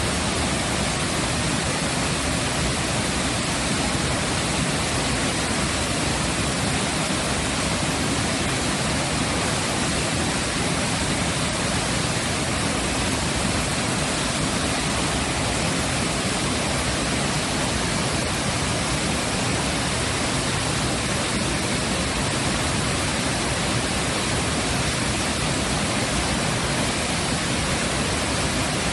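A waterfall's steady rushing water, a loud, even noise with no breaks or changes.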